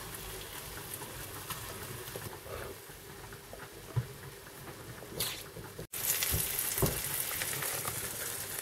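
Hot oil sizzling in a frying pan as fried tugun are lifted out onto a plate, with a few light clicks of the fork. After an abrupt cut about six seconds in, the hiss comes back louder and steadier.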